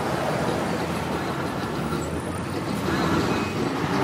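Steady road traffic noise, the running of vehicles along a busy road.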